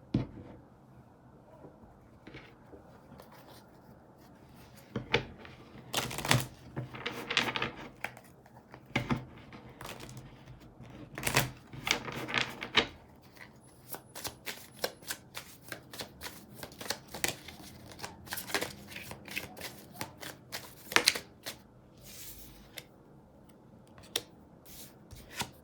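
Tarot cards being shuffled by hand: irregular spells of quick clicks and rustling, starting about five seconds in and stopping a couple of seconds before the end.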